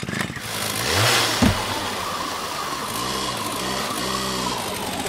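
Chainsaw engine revving up, with a sharp thump about one and a half seconds in, then running steadily.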